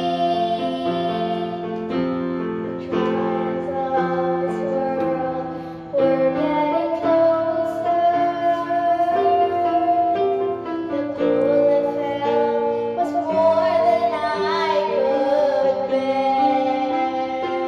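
A young girl singing a slow song into a handheld karaoke microphone, accompanied by an electronic keyboard playing sustained chords. She holds long notes with vibrato, with a short break in the phrase about six seconds in.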